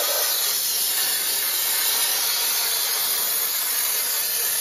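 Compressed-air blow gun giving a steady hiss as it blows rust and debris out of a rusted cylinder head, clearing the head-bolt recesses so a socket can reach the bolts.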